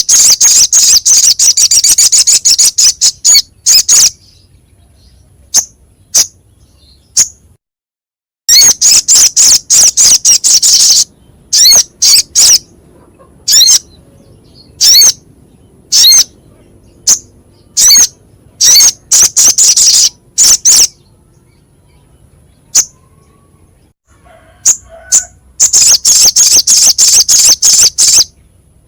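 Sogok ontong (crimson sunbird) singing a harsh, very high-pitched song: three long bursts of rapid chattering notes, with single sharp notes scattered between them.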